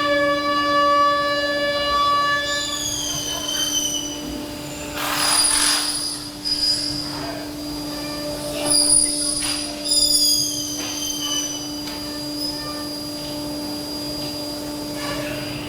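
Window-factory machinery running: a steady hum, high squealing tones that slide down in pitch several times, and short bursts of hiss.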